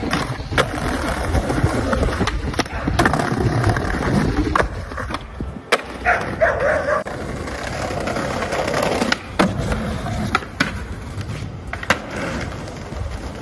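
Skateboards rolling over pavement and brick, with a board grinding along a stone ledge and sharp tail pops and board landings clacking several times.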